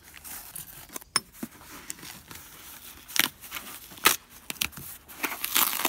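A cardboard mailing envelope being cut open with a small knife and its flap torn and pulled apart: irregular crackling and rustling of cardboard and paper, with a few sharp tearing snaps, densest near the end.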